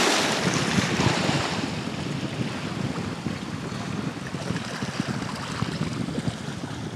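Black Sea surf breaking on the shore, with wind buffeting the microphone. A wash of surf is loudest at the start and eases over the first couple of seconds, then the surf and wind carry on steadily.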